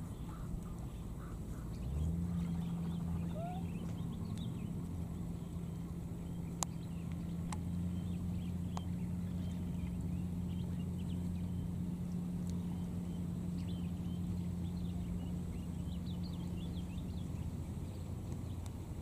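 A motor hums steadily at a low, even pitch, starting about two seconds in and stopping near the end, with faint scattered chirps and a few sharp clicks over it.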